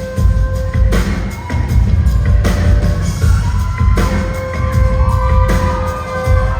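Live band music, loud and bass-heavy, with a steady beat and held keyboard-like tones.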